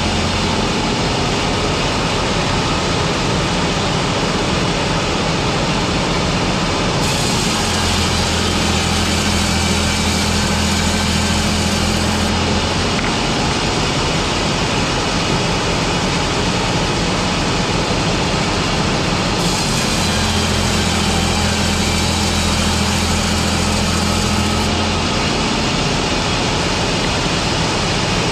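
Machinery on a board-production line running with a loud, steady mechanical noise. A deeper hum comes in for about five seconds and drops out again, twice, in a repeating cycle.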